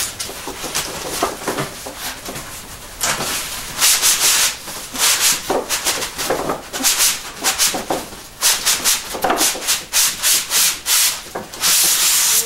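Cardboard shipping box being pulled up and off a large styrofoam packing block: cardboard rubbing and scraping against the foam in a long run of irregular strokes.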